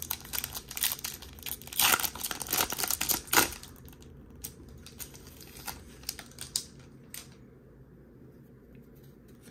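Foil wrapper of a Topps baseball card pack being torn open and crinkled: dense crackling for the first three and a half seconds, then sparser crinkles that die away about seven seconds in.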